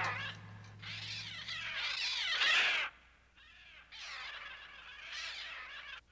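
Many birds shrieking and cawing at once, harsh screeches sweeping up and down in pitch. The screeching swells to its loudest about two and a half seconds in, breaks off briefly, then returns a little quieter.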